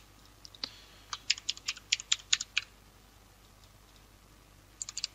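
Typing on a computer keyboard: a quick run of about a dozen keystrokes over the first two and a half seconds, then a pause, then a few light keystrokes near the end.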